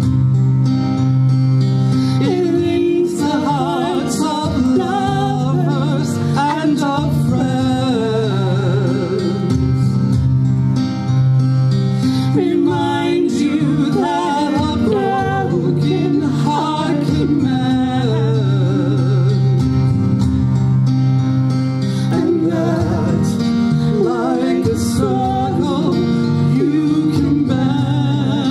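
Live music: a woman and a man singing a duet with vibrato, backed by a band with acoustic guitar.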